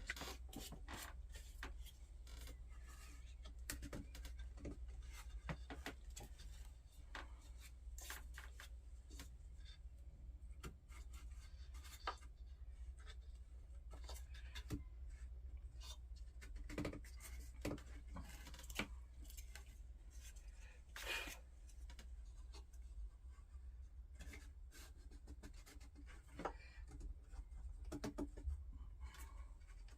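Faint scattered taps and rubbing as wooden frame pieces are handled and glued at their joints, over a steady low hum.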